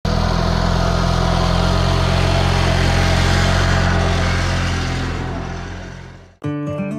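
Garden tractor engine running steadily as the tractor drives right past, then fading away as it moves off. About six and a half seconds in it cuts off abruptly and short musical notes begin.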